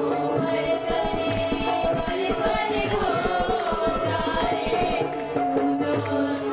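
Live devotional song accompaniment: a harmonium playing sustained chords and melody, with an electronic keyboard and a steady hand-percussion rhythm.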